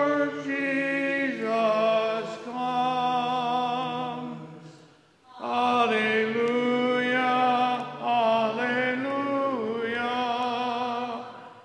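Gospel acclamation sung as a slow liturgical chant: two long, melismatic phrases with held, gliding notes and a short break for breath about five seconds in.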